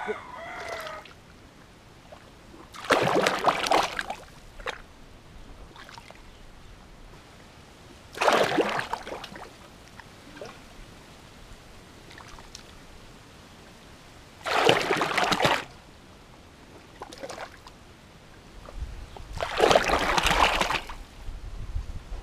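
Hands sloshing and splashing through thick mud and shallow muddy water while groping for fish, in four bursts of about a second each, several seconds apart.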